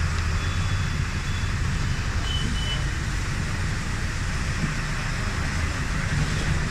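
Steady low rumble and tyre hiss of a vehicle driving on a rain-wet road.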